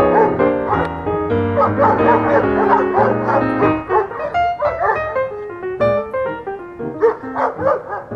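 Background music, with dogs barking over it.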